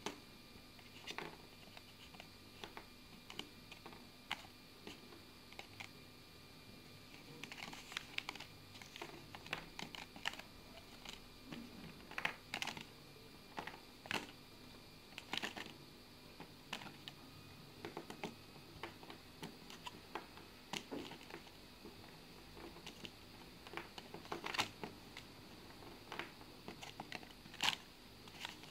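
Irregular light clicks and taps as small plasticine pieces are picked up off a wooden table and set into a clear plastic box.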